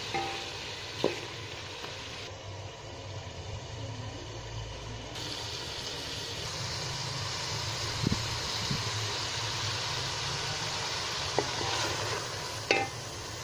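Food frying and sizzling in a cooking pot as it is stirred, with a few sharp knocks of a spoon against the pot.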